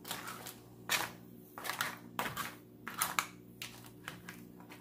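A spoon stirring cooked crab pieces in coconut milk in a nonstick frying pan: repeated short clacks and scrapes of the spoon against crab shells and the pan, every half second to a second. A faint steady hum lies underneath.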